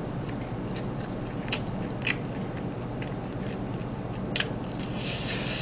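Bites and chewing of crispy fried chicken close to the microphone, with sharp crunches about one and a half, two and four and a half seconds in.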